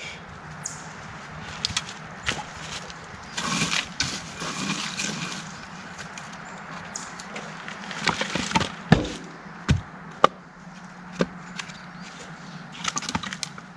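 Sticks and firewood being handled and stacked into a fire lay: scattered wooden knocks, snaps and rustles, with a few louder clacks about nine and ten seconds in.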